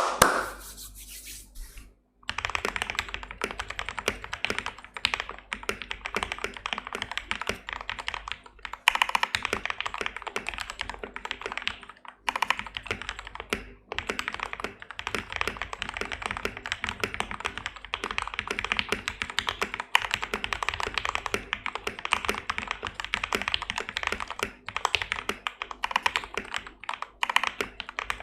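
Fast, continuous typing on a modded RK84 mechanical keyboard with lubed Gateron Milky Yellow linear switches, lubed stabilizers, PE foam, tape and case foam mods. The typing starts about two seconds in and pauses briefly twice midway.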